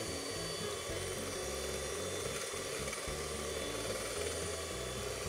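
Handheld electric mixer running steadily, its twin wire beaters whipping eggs and sugar in a baking dish until the mixture turns pale.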